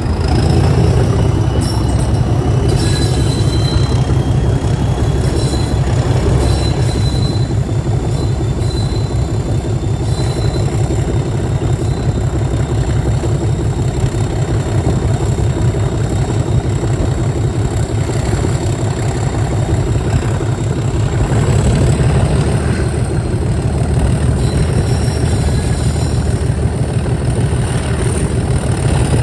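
Class 37 diesel-electric locomotive's English Electric V12 engine running under power as it hauls the train, a steady deep throb with the rumble of the coach wheels on the track. Faint intermittent wheel squeal sounds in the first several seconds.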